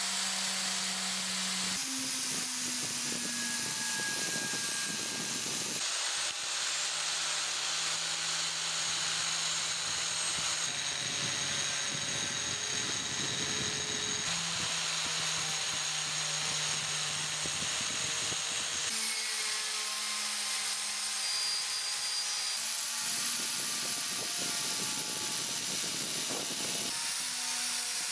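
Angle grinder fitted with a wire cup brush scouring rust off a steel kukri blade: a steady motor hum under the scratchy hiss of the wire bristles on the metal. The motor note jumps to a new pitch every few seconds.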